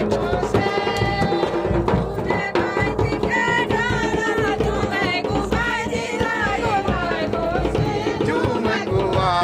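Traditional Pahadi folk song: a voice singing a wavering, ornamented melody over steady drumming.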